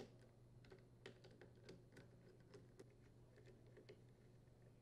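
Faint, irregular light clicks of an 8mm nut driver working the small mounting nuts on a string trimmer's plastic air filter housing as they are tightened.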